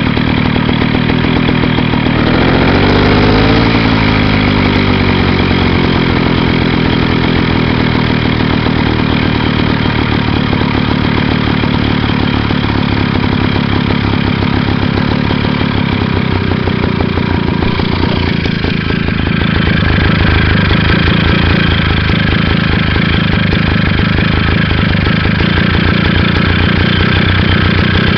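Vintage JAP air-cooled stationary engine running just after starting: its revs rise briefly a couple of seconds in, then it settles into a steady run, getting slightly louder and brighter about two-thirds of the way through.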